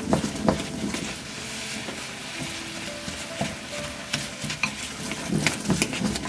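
A metal ladle stirring stinging nettle greens in a hot metal pan, with irregular clinks and scrapes against the pan over a steady hiss from the cooking greens, the clinks thinning out for a couple of seconds mid-way.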